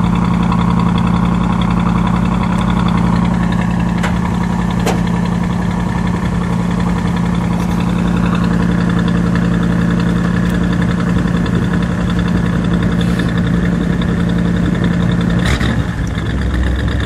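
1959 Edsel Corsair's 303-horsepower 361 cubic inch V8 idling steadily, heard at the tailpipe. The idle note changes slightly near the end.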